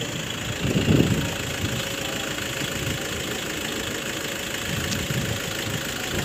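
Car engine idling steadily under outdoor background noise, with a brief louder low sound about a second in.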